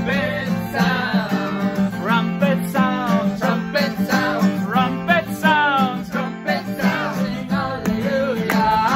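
Acoustic guitar strumming a steady beat while several people imitate trumpets with their voices through cupped hands: short wordless toots and notes that slide up and down.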